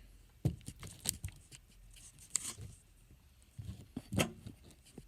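Scattered light knocks, clicks and scrapes of small objects being handled and moved about, with a louder knock about four seconds in.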